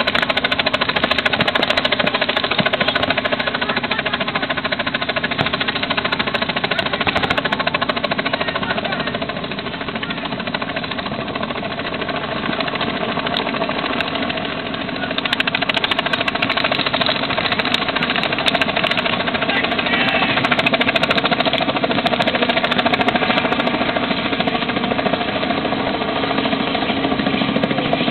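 Rapid, continuous popping of paintball markers firing in quick strings, dipping somewhat for a few seconds in the middle.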